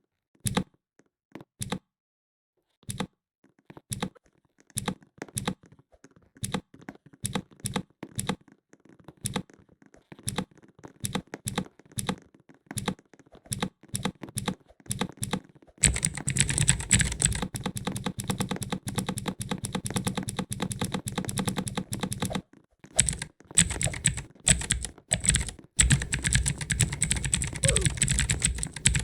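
Mechanical keyboard switches clicking under the fingers: separate keystrokes at first, then a little over halfway a fast, dense run of clicking that pauses briefly and starts again.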